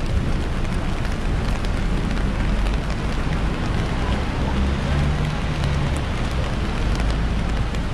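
Steady rain on a wet city street, with the low rumble of a bus and cars at a crossing and scattered ticks of drops.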